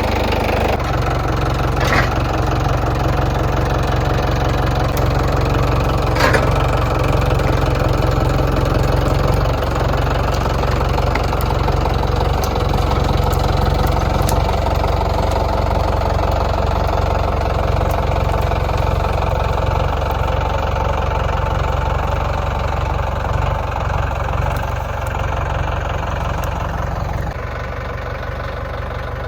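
Engine running steadily under load while pulling a large felled tree, with a sharp knock about two seconds in and another about six seconds in; the engine eases off near the end.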